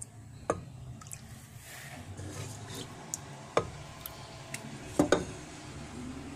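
A ladle stirring and scooping fish curry in a pan, the thick liquid sloshing, with several sharp knocks of the ladle against the pan; the loudest is a quick pair about five seconds in.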